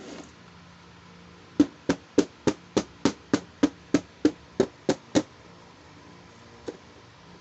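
A quick run of about a dozen evenly spaced sharp taps or knocks, roughly three a second, then one last lighter tap a moment later.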